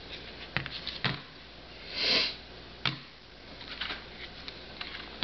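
Light clicks and knocks of smartphones being set down and handled on a tabletop, with a short breathy sniff about two seconds in, the loudest sound.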